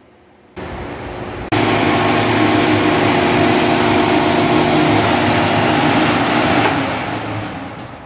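Britânia Mega Turbo 130 W table fan running close by: a steady rush of air with a low hum that starts abruptly about a second and a half in. Near the end it dies away as the fan is switched off and its blades spin down.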